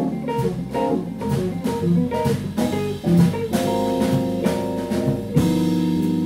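Jazz combo playing: an archtop electric guitar solos over bass and drum kit, quick runs of notes giving way to longer held notes, with a sharp drum or cymbal hit about five seconds in.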